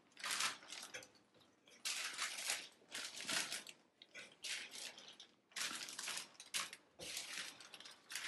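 Clear plastic resealable bag crinkling and rustling as roasted pepper halves are lifted off a lined baking tray and dropped into it, in short irregular bursts.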